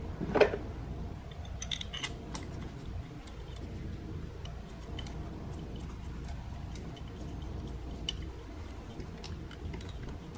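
Light metallic clicks and ticks of small bolts being handled and threaded by hand into the ignition coil mounts of a VW 1.4L turbo engine, with one louder short knock with a quickly falling tone about half a second in and a cluster of sharp clicks around two seconds in, over a steady low hum.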